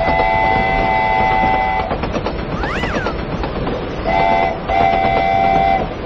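Toy train set running with a continuous rattling rumble, and a multi-tone train horn blowing: one long blast, then a short one and a longer one near the end. A brief rising-and-falling whistle sounds about halfway through.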